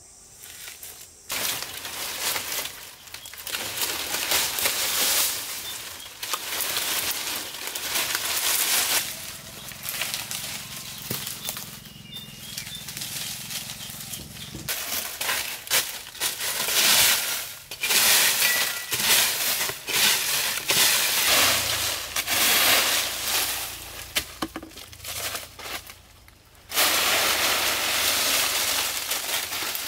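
Dry leaves and twigs rustling and crackling in repeated irregular bursts as they are handled and pulled out by hand, with a longer unbroken stretch of loud leaf rustling near the end.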